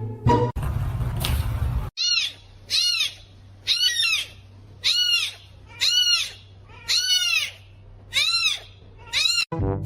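A small animal calling: about ten short, high-pitched calls, each rising then falling in pitch, repeated roughly once or twice a second. They follow a brief hissing noise near the start.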